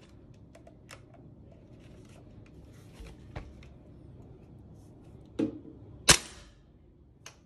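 Tokyo Marui M4A1 MWS gas blowback airsoft rifle firing a single shot about six seconds in, a sharp crack from the gas discharge and the bolt cycling. Before it come faint handling clicks and a duller knock.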